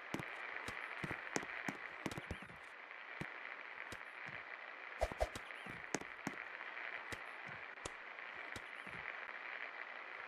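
56-inch Paradise industrial ceiling fan running, a steady whir with scattered irregular clicks and ticks.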